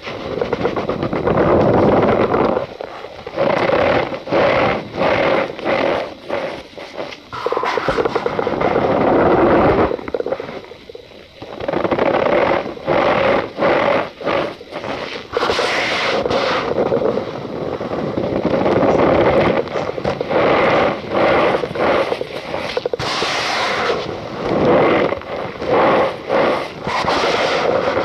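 Cornstarch powder being squeezed and crushed by hand, giving squeaky crunching in repeated short bursts, about one or two a second, with brief pauses between.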